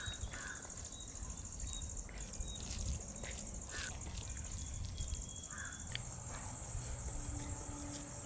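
Outdoor rural ambience: a steady high-pitched drone of crickets and other insects, with short scattered bird calls. The insect drone grows louder about six seconds in.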